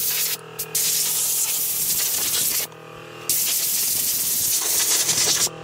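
Compressed-air blow gun on an air hose blowing loose soot and sawdust off a wooden carving: a loud hiss in three blasts, with a short break early on and a longer one of about half a second near the middle, over a steady low hum.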